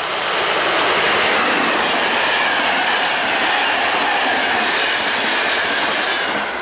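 Electric-locomotive-hauled passenger train passing close by at speed: a loud rush of wheels on rails as the locomotive and coaches go by, with faint wheel squeal, falling away near the end as the last coach passes.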